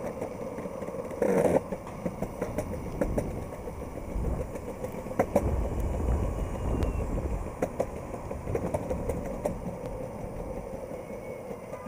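Electric skateboard rolling along a city sidewalk: a steady rolling noise with scattered short clacks. A city bus rumbles past in the middle.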